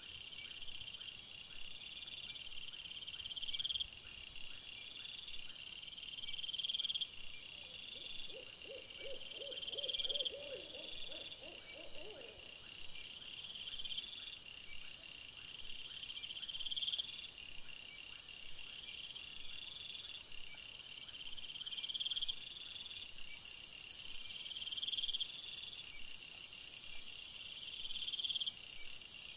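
Night chorus of chirping insects, repeating in a regular pattern. A short run of about ten quick, lower pulses comes about eight seconds in, and a high hiss joins over the last six seconds.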